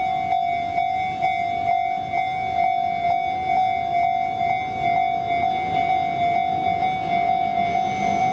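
Japanese railway level-crossing warning bell ringing its repeated electronic 'kan-kan' tone, about two strikes a second, warning of an approaching train. Near the end the oncoming train itself starts to be heard under the bell.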